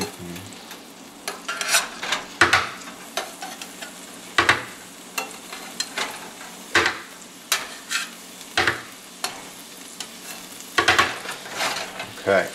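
Metal tongs clicking and scraping against a stainless steel skillet, sharp knocks every second or so, over the steady sizzle of a thin pan sauce simmering.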